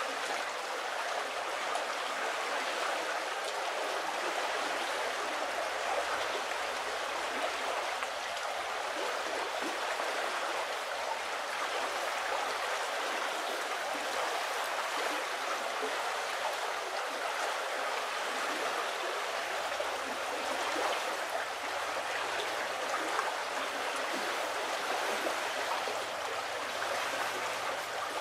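Shallow river water running over a shingle bed: a steady, even rush and babble of flowing water.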